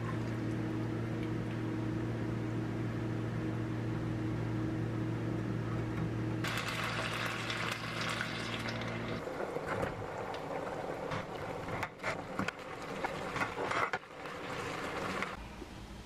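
Water poured from a kettle into a frying pan of fried rice, hissing, starting about six seconds in; then a crackling sizzle with scraping as the rice is stirred in the pan, stopping shortly before the end. A steady low hum runs under the first half and stops about nine seconds in.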